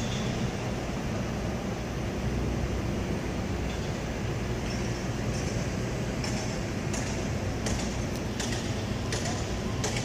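Train at a station platform giving off a steady low hum, with a series of short hisses in the second half.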